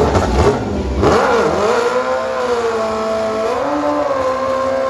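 A drag-racing engine revving hard. Its pitch climbs about a second in, holds high and steady, and steps up a little about three and a half seconds in.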